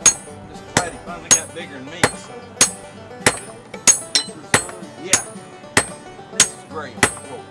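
Hand hammers striking hot iron held in tongs on a small round steel anvil block: about a dozen sharp, ringing blows, evenly spaced at a little under two per second.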